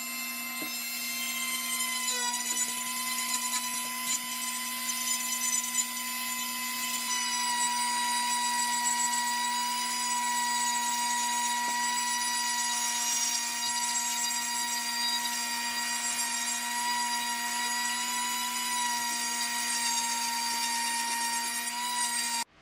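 Dremel rotary tool with a flex-shaft handpiece running at speed, a steady high whine as the bit strips bark from a wooden branch. Its pitch dips slightly about two seconds in and again around seven seconds. The sound starts and stops abruptly.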